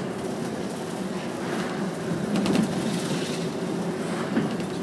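Inside a route bus on the move: steady engine and road-tyre drone, with a few rattling clicks from the cabin fittings about halfway through.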